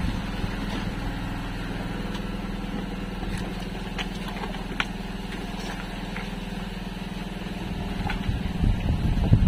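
Small engine idling steadily, a constant low hum with a few faint clicks about four and five seconds in.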